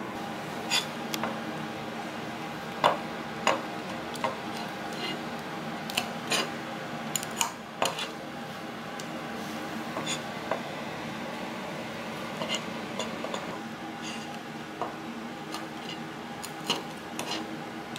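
Knife clicking and tapping on a plastic cutting board as raw prawns are cut and cleaned, in irregular sharp knocks, over a steady background hum.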